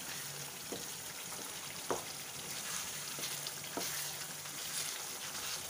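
Chicken and masala sizzling in oil in a nonstick kadai as a wooden spatula stirs it, with three light knocks of the spatula against the pan. The gravy is being cooked down to semi-dry.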